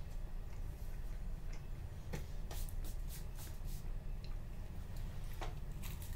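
Steady low rumble of a car ferry's engines heard inside a cabin. Over it come light crackles and clicks from a flaky cream-filled pastry and its clear plastic food tray being handled, about two seconds in and again near the end.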